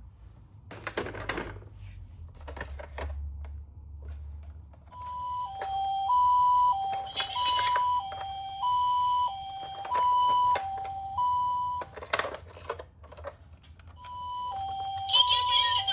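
Toy ambulance minicar's electronic two-tone siren sounding a high-low "pee-poh" pattern, starting about five seconds in, cutting off around twelve seconds and starting again near the end. A few knocks and handling sounds come before and between the siren bursts.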